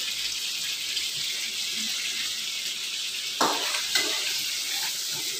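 A steady hiss of tap water running into a plastic bowl and of rendang spice paste frying in a wok, with two brief knocks about three and a half and four seconds in.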